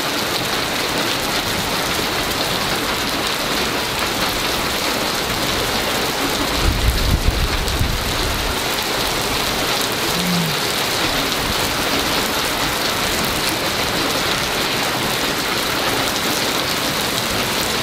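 Heavy rain pouring down in a steady hiss. About seven seconds in, a low rumble swells for a couple of seconds.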